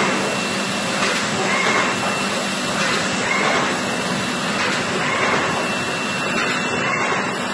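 Carton-forming packaging machine with a hot-melt glue system running: a steady mechanical din, with short hisses recurring every second or two as the cases are folded and glued.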